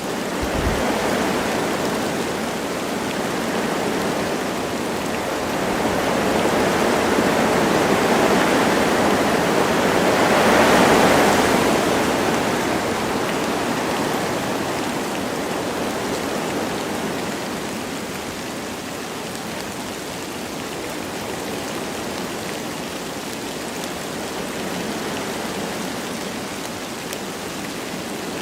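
Wind blowing through forest trees with light rain falling, a steady rushing hiss. A gust builds, peaks about eleven seconds in and then dies down.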